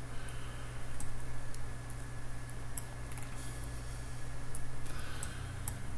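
A few faint computer keyboard and mouse clicks, including mouse-wheel scrolling, over a steady low hum.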